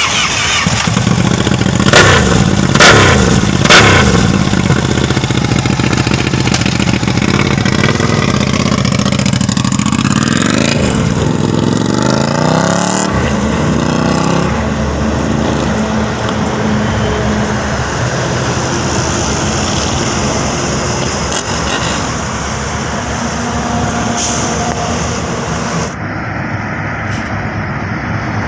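Ducati Panigale 959 L-twin engine with an Austin Racing exhaust, revved in three sharp blips about two seconds in. It then accelerates with pitch rising through the gears, and settles into a steadier run.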